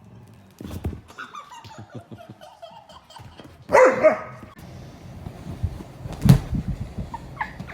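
A dog barking: one loud bark about four seconds in, with softer calls before it. A sharp thump follows a couple of seconds later.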